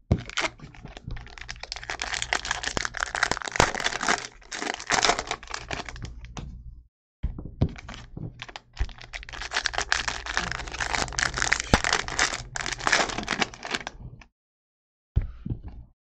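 Shiny foil wrappers of baseball card packs being torn open and crumpled by hand, a dense crinkling crackle. It breaks off briefly about seven seconds in, resumes, and stops near the end with one short burst after.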